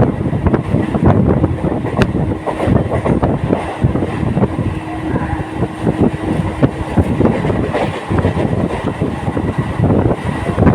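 Local passenger train running at speed, its wheels clattering and knocking busily over the rails. A steady hum stops about two-thirds of the way through.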